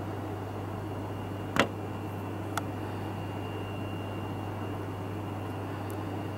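Steady low hum with an even hiss and a faint high whine, the background noise of the recording setup. A single sharp click about a second and a half in, and a smaller one a second later.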